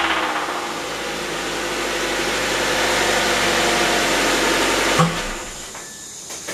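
Car engine idling with a knock that the owner suspects comes from an overheated rod bearing gone loose. About five seconds in there is a single thump, and the engine sound stops.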